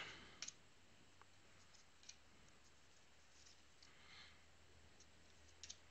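Near silence with a few faint clicks and a soft rustle of trading cards being slid one over another by hand. The clearest click comes about half a second in, with a quick double click near the end.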